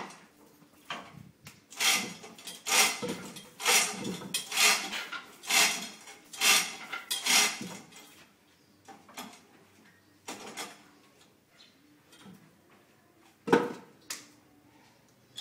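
Metal clanking and rattling from a chain hoist over a freshly cast bell in its casting pit: a run of sharp clanks about once a second, then sparser light clicks, and one loud clank near the end.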